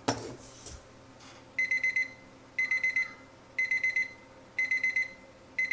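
Habor digital kitchen timer's alarm going off at the end of its countdown: short runs of rapid high-pitched beeps, about one run a second, starting about a second and a half in.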